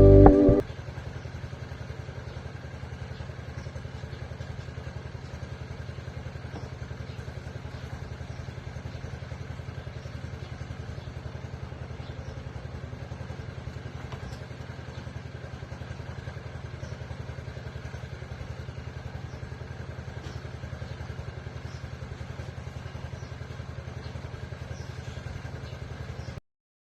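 A small engine running steadily, an even low throb with a fast regular pulse, which cuts off suddenly near the end. The last notes of a song end in the first second.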